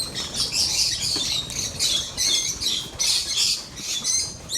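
Lovebirds in an aviary squawking and chattering with shrill, rapid calls, two or three a second.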